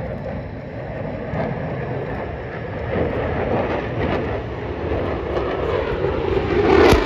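Jet engine roar from a fighter jet, the F-22 Raptor, performing its display. It is a steady rushing noise that swells near the end as the jet passes close.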